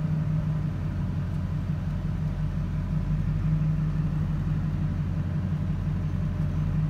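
A loaded truck's engine running steadily as the truck crawls along at low speed, heard from inside the cab as an even low drone.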